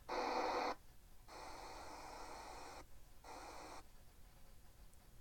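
Sony ICF-SW35 portable radio's speaker hissing with static in short bursts, cutting to silence between them, as the radio is switched over to FM and tuned. The first burst, right at the start, is the loudest; two fainter stretches of hiss follow a little later.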